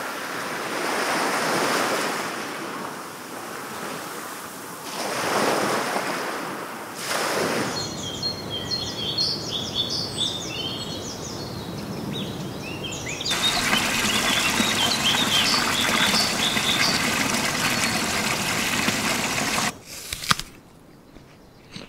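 Nature ambience of water and birds: waves washing in with about three slow swells, then birds chirping over a steady rush of water. The rush of water grows louder part-way through and cuts off abruptly near the end.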